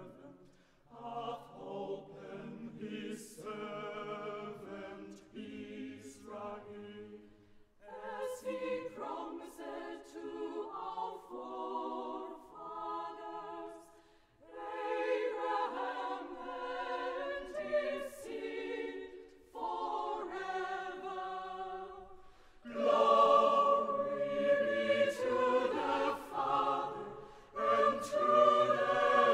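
A choir singing a carol, apparently unaccompanied, in phrases of a few seconds with brief breaks between them. It grows louder about three-quarters of the way through.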